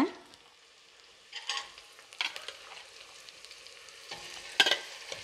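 Shallots, green chillies and whole spices sizzling in groundnut oil in a stainless steel pot, with a slotted metal spoon scraping and clinking against the pot a few times. The loudest clink comes near the end as salt-marinated raw chicken pieces are spooned in from a steel bowl.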